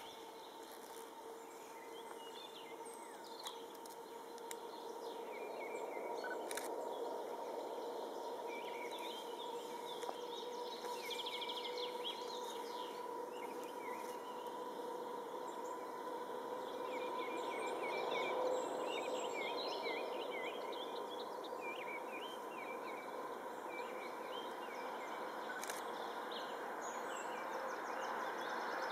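Songbirds chirping over a steady distant hum with two held tones, which slowly grows louder. It is a class 750 diesel-electric locomotive approaching along the line, not yet in sight.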